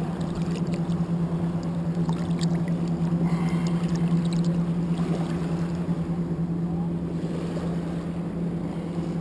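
A steady low motor hum with no change in pitch. Faint light splashes of water come in the first few seconds.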